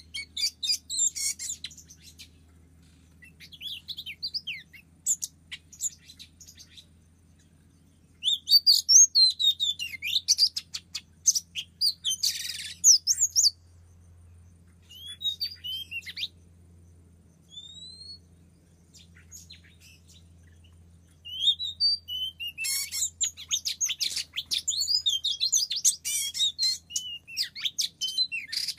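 Oriental magpie-robin song: phrases of quick, varied whistles and chirps coming in bursts with short pauses between them, and a brief scratchy note about twelve seconds in.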